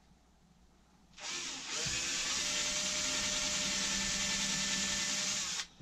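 Cordless drill running steadily under load for about four and a half seconds, driving in a fixing for a metal drawer runner, with a short rise in motor pitch as it gets going. It stops abruptly near the end.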